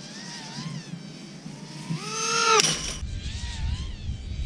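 FPV racing quadcopter's motors and propellers whining, the pitch wavering with throttle and then climbing steeply to a loud peak about two seconds in before breaking off abruptly; fainter throttle-varying whine follows.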